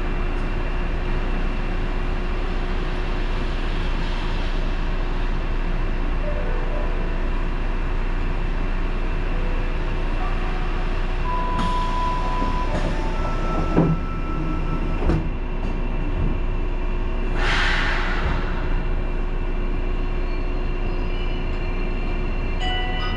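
Randen (Keifuku Electric Railroad) railcar heard from beside the driver's cab: a steady hum of the car's running and electrical equipment, with two short beeps about halfway through, two sharp clunks about a second apart just after, and a brief hiss a couple of seconds later.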